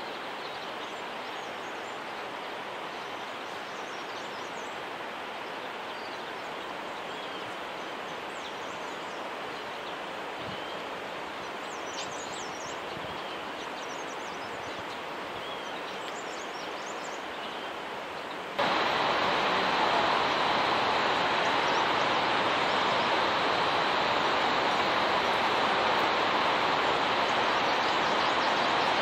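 Steady outdoor rushing ambience of a mountain valley, with a few faint bird chirps in the first part. About two-thirds of the way through, it jumps abruptly to a louder, fuller rush.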